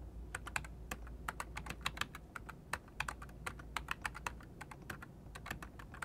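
Typing on a low-profile computer keyboard: quick, irregular key clicks, several a second.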